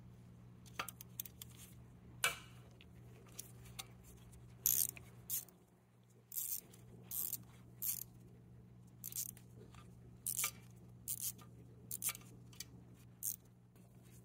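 Hand ratchet with a T30 Torx bit working loose the retaining bolt of a wheel speed sensor: a string of single sharp metal clicks at uneven intervals, over a faint steady low hum.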